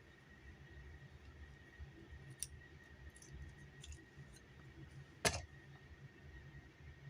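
Plastic action figures being handled and set in place: a few light clicks, then one sharper knock about five seconds in.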